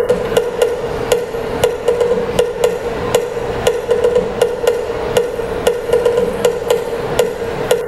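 Traditional percussion music for the Binanog dance: a steady ringing tone under sharp, even strikes at about four a second.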